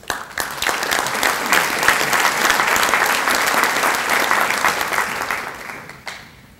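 Audience applauding with a dense clapping that starts at once, holds steady, then fades out about six seconds in.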